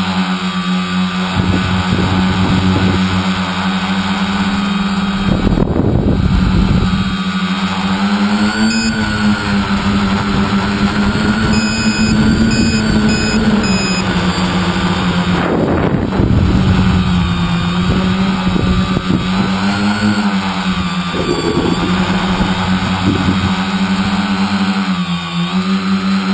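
Tricopter's three brushless motors (2210N 1000kv) and 9047 propellers buzzing in flight, a loud steady hum whose pitch rises and dips several times as the throttle changes, heard from the onboard camera. Rumbling wind noise hits the microphone twice, around five and sixteen seconds in.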